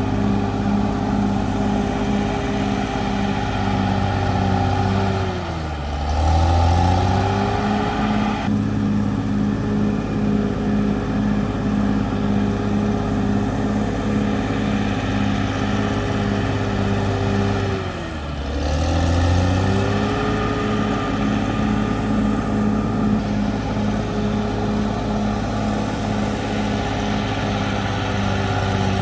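Caterpillar D6R XL bulldozer's diesel engine running steadily, with a thin high whine above it. The engine pitch sags and comes back twice, about six seconds in and again near eighteen seconds, the whine dropping with it each time.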